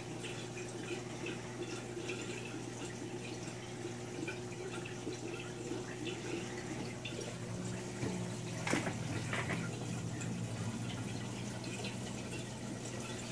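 Aquarium filtration water trickling and dripping over a steady low hum. One sharp knock about nine seconds in.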